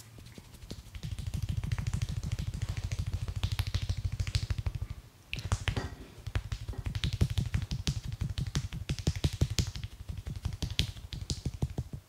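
Barber's hands striking the client's back or head in a fast percussive massage, many even strokes a second. The strokes pause briefly about five seconds in, with a few sharper slaps, then resume.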